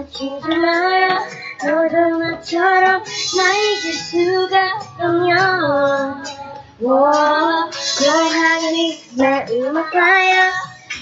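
A child singing a pop song solo, in phrases of held and sliding notes with short breaks between them.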